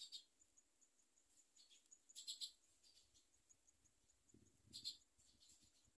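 Faint, high-pitched peeping of nestling songbirds begging in the nest, coming in short clusters of chirps a few times.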